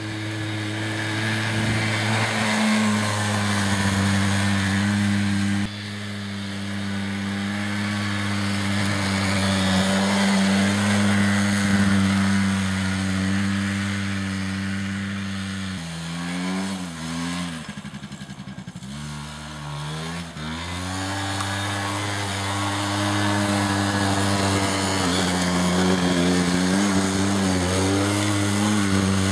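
Small engine of a Keeway ATV 50 quad running at a steady pitch under throttle. About sixteen seconds in it drops to a lower, wavering pitch for about five seconds as the throttle eases, then picks back up and holds steady again.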